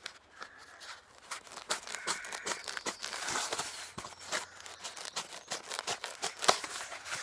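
Crinkly stuffing material being handled, rustling with many irregular small crackles and snaps.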